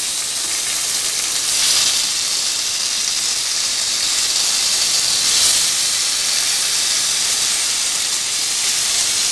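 Tandoori-marinated chicken legs sizzling in oil in a thick kadai as they are turned over with tongs, a steady frying hiss that swells twice, about two and five seconds in.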